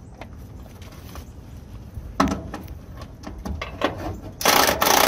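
Half-inch cordless impact wrench hammering on the top bolt of a semi truck's front shock absorber to take the nut off. It starts near the end in a loud rattling burst with a brief break. A few sharp knocks come before it.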